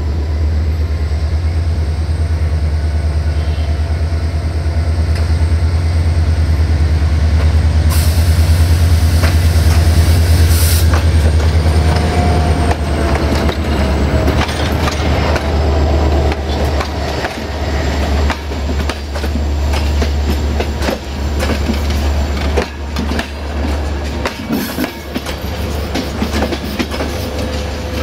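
A train rolling slowly through a station. A heavy low rumble runs throughout, with a hiss lasting about three seconds about eight seconds in. Later come a brief wheel squeal and rhythmic clicking of wheels over rail joints.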